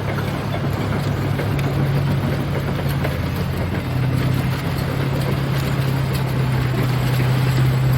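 Heavy diesel engine of a bulldozer running steadily at a low, even pitch.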